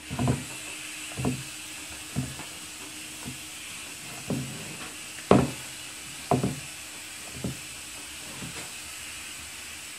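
Purple slime being squeezed and kneaded by hand in a plastic bowl, with a short soft knock about once a second, the loudest a little past halfway, over a steady hiss.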